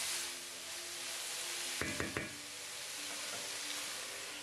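Shredded white cabbage, peas and tomato frying in a pan on medium heat with a steady sizzle, stirred with a wooden spatula; a few short knocks of the spatula against the pan about two seconds in.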